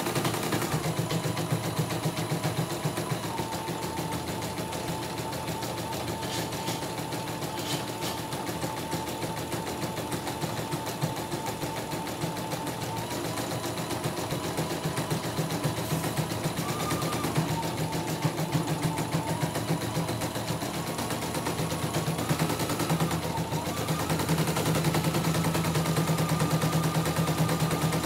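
CNY E900 computerized embroidery machine stitching a design, the needle running in fast, even strokes while the hoop moves the fabric. Its motor whine shifts in pitch a few times as the stitching speed changes, and it gets louder in the last few seconds.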